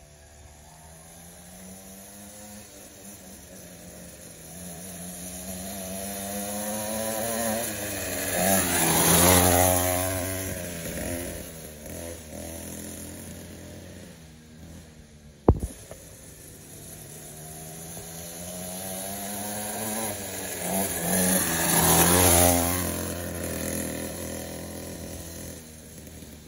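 Upgraded 49cc two-stroke pocket bike engine passing by twice. Each time its buzzing note swells as it approaches and drops in pitch as it goes past. A single sharp click comes about halfway through.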